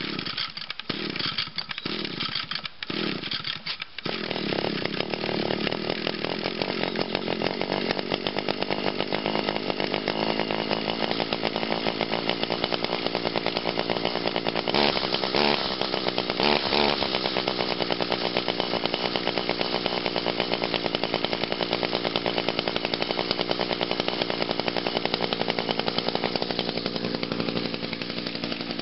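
Echo SRM 2400SB two-stroke string trimmer cold-started on choke: a few pulls of the recoil starter, then the engine catches about four seconds in and runs steadily, revved up briefly twice about halfway through.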